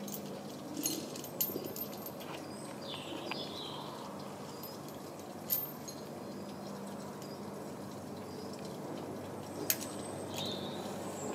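Outdoor garden background with a faint low hum, a few sharp clicks from rope and metal rigging hardware being handled, and brief bird chirps.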